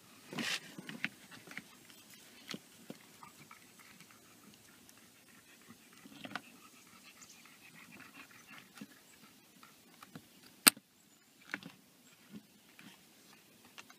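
Hands working wiring and plastic trim under a car's dash: scattered light rustles and ticks, then one sharp click a little before eleven seconds in as the fog light switch's wiring connector latches into the switch.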